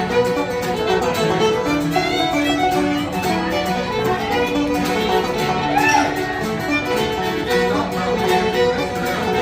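Irish traditional tune played fast on fiddle, with banjo and mandolin picking along.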